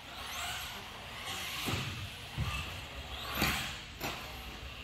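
Schumacher Cougar LD2 1/10 electric off-road buggy running laps on a carpet track: motor whine and tyre noise rising and falling with the throttle, with a few thumps as it lands off the jumps.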